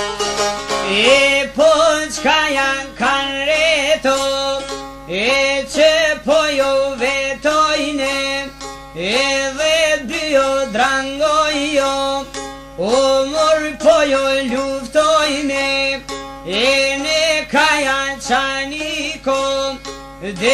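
Instrumental break in an Albanian folk song: a plucked string instrument plays a repeating phrase whose notes slide up in pitch, over a steady low drone.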